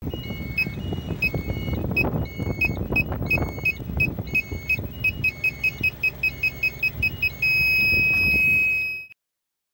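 Truck reversing-sensor display beeping as the truck backs toward an obstacle: the beeps come faster and faster as the distance closes, then merge into one continuous tone, the too-close warning, which cuts off suddenly. A low vehicle rumble runs underneath.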